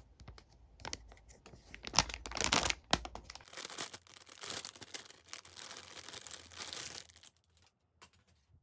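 Clear plastic bag around a plush doll crinkling and rustling as it is handled and pulled off, with louder crackles about two and three seconds in. It dies away near the end.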